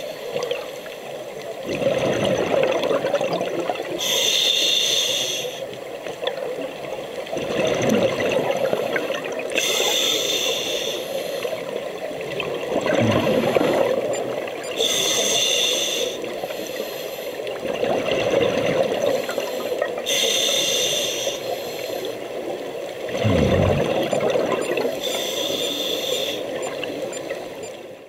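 Scuba diver breathing through a regulator underwater: a short hissing inhale about every five seconds, each followed by a long bubbling rush of exhaled air.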